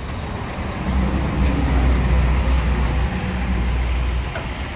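Heavy diesel truck engine running, a low rumble that swells about a second in and eases off near the end.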